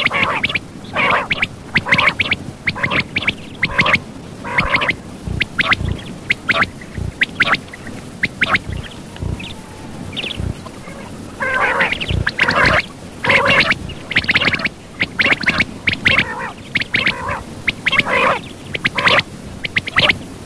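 Quail calling: a rapid, irregular series of short, sharp notes repeated several times a second. The notes are softer for a few seconds in the middle and loud again for the second half.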